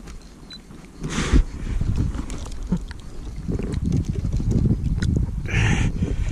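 Wind buffeting the camera microphone with low handling rumble as the rod is worked, broken by two short hissing bursts, one about a second in and one near the end.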